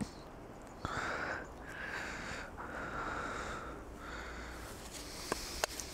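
A person breathing close to the microphone: four breathy puffs, each under a second, followed by a few light clicks near the end.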